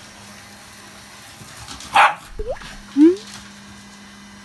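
Shiba Inu barking at a vacuum cleaner: one sharp bark about two seconds in, then two short yelps that rise in pitch within the next second. A running vacuum cleaner hums steadily underneath.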